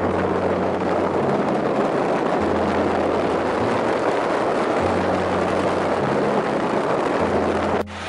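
A car driving on a wet road, heard at the passenger window: a loud, steady rush of wind and tyre noise, with low steady tones underneath that shift in pitch every second or two. The rush cuts off abruptly near the end.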